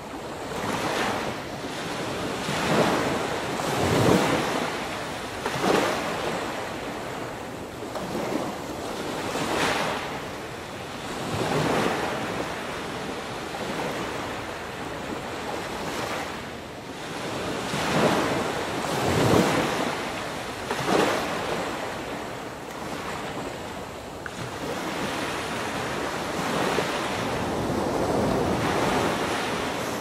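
Ocean surf washing onto a beach: a continuous hiss of breaking waves that swells every few seconds, with wind on the microphone.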